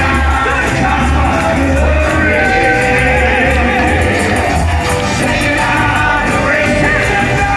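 Live gospel music: a church choir and congregation singing over a band with a prominent bass line, with scattered shouts from the congregation.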